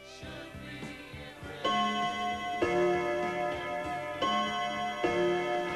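Clock ticking steadily; about a second and a half in, ringing chime-like notes come in over it, a new note struck about every second.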